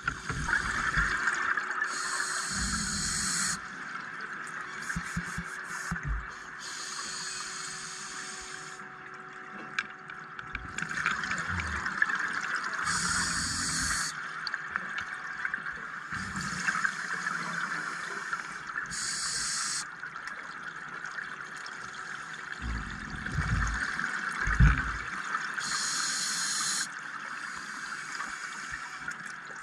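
Scuba diver breathing through a regulator underwater: about five hissing breaths, roughly every five to six seconds, with low bubbling rumbles of exhaled air between them, over a steady underwater hiss.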